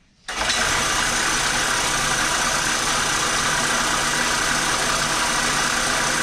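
Bandsaw switched on about a third of a second in, then running steadily and loudly.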